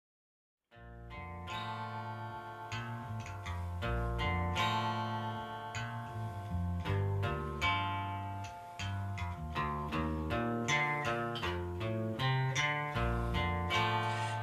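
Instrumental intro on a Taylor acoustic guitar and a Fender electric bass playing together, starting just under a second in after silence.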